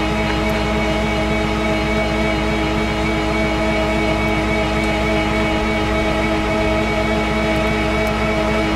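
Rollback tow truck's engine running steadily at a raised idle to drive the hydraulic winch pulling the non-running car up the tilted bed. It makes an even mechanical hum with a fixed whine over it.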